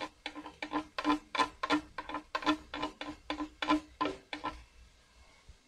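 Wooden spoon scraping and tapping diced onion off a ceramic plate into a stainless steel pot. There are about three quick strokes a second, each with a short ring, and they stop a little before the end.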